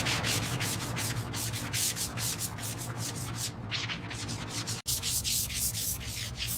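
Rapid, rhythmic abrasive scraping strokes, about five a second, like sanding by hand. The strokes break off once with a sudden cut about five seconds in.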